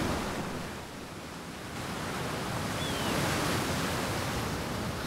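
Sea surf washing on a beach: a steady rushing hiss that dips about a second in and swells again.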